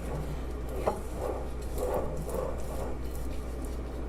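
A utensil stirring wet cookie batter of creamed butter, sugar and egg in a mixing bowl: soft, uneven scraping strokes, with a light knock against the bowl about a second in.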